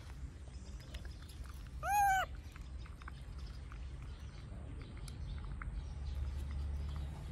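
A baby macaque gives one short high call about two seconds in, its pitch rising and then falling, over a low steady hum and a few small clicks.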